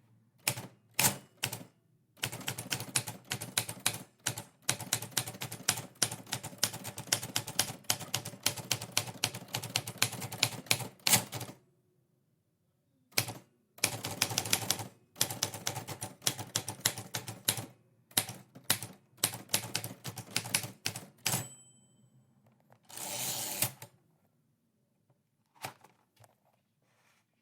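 Typewriter keys being struck in fast runs of typing, broken by short pauses. Near the end comes a brief high ring, then a rasp lasting about a second, typical of a typewriter's margin bell and carriage return.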